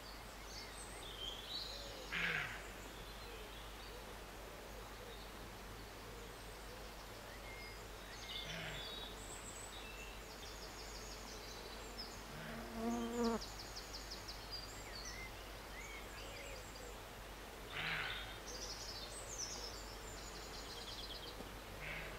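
Roe deer barking: three or four short, hoarse barks spaced several seconds apart, the loudest a couple of seconds in. Small birds chirp and trill between the barks.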